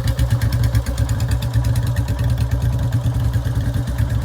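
Two Royal Enfield Bullet 350 single-cylinder engines idling together through short bottle silencers, a steady, even low thump.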